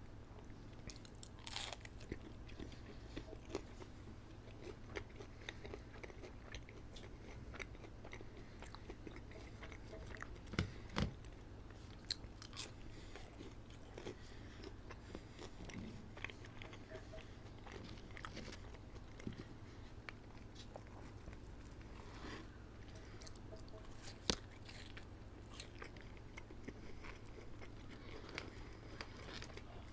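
Close-miked eating of McDonald's food: chewing and biting with many small wet mouth clicks and smacks, and a few sharper clicks or knocks about a third of the way in and again later. A steady low hum sits underneath.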